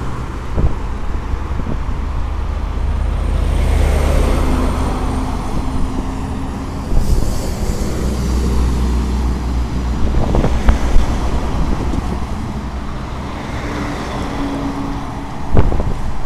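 Cars and trucks driving past at speed on a dual-carriageway expressway: a steady wash of tyre and engine noise that swells as each vehicle goes by.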